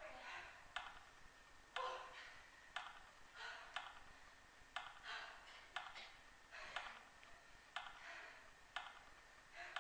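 Steady ticking, one sharp tick about every second, with faint voice sounds between the ticks.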